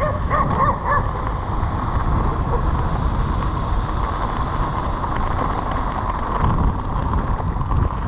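Wind buffeting the microphone over a continuous low rumble, as from a mountain bike rolling over a rough trail, with a few short high-pitched calls in the first second.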